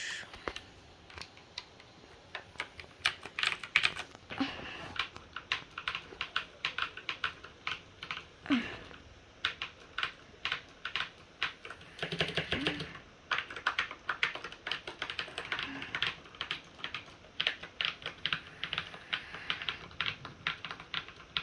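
Typing on a mechanical keyboard with silent blue switches: a fast, irregular run of keystroke clicks.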